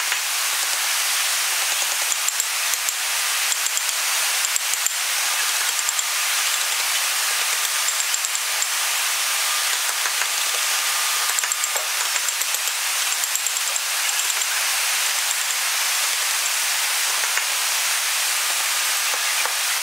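A steady hiss throughout, with faint, scattered taps of a wooden mallet striking a wood-carving chisel.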